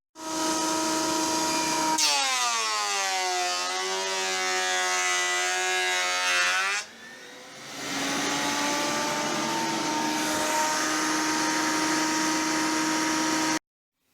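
Electric thickness planer running and taking a cut across an end-grain pine board with an oak border. The motor's pitch sags under load for several seconds and then recovers. It eases off briefly, runs steadily again, and cuts off abruptly near the end.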